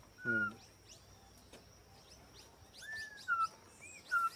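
Campo troupial (concriz) giving short whistled call notes, four times, the first and last the loudest. Quick, thin falling chirps of small birds and a steady high tone run beneath.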